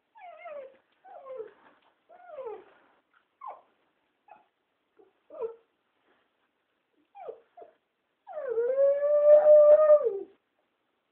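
Puppy crying at being left alone: a run of short, falling whimpers, then one long howl of about two seconds near the end, the loudest cry.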